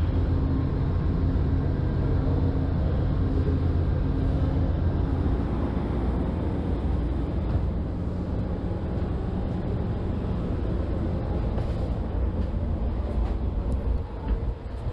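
Steady low rumble of a passenger train, with a faint steady hum over it for the first five seconds and a few light clicks near the end.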